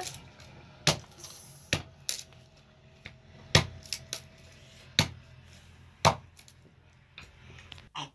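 About eight sharp knocks and clinks, irregularly spaced at roughly one a second.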